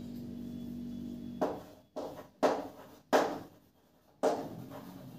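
A steady low hum, then four short writing strokes about a second apart, each starting sharply and fading quickly.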